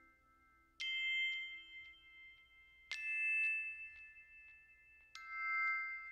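Background music: three bell-like struck notes, about two seconds apart, each ringing on after it is struck.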